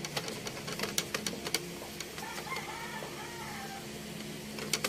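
A few sharp mechanical clicks from the Janome N3000 sewing machine being handled, then a rooster crowing faintly in the background about two seconds in, over a low steady hum.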